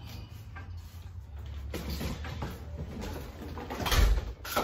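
Manual wheelchair rolling across the floor with knocks and rattles over a steady low hum, then a heavy thump about four seconds in.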